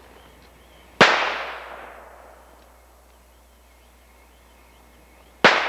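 Two shots from a Taurus five-shot .44 Special revolver, about four and a half seconds apart, each trailing off in a long echo.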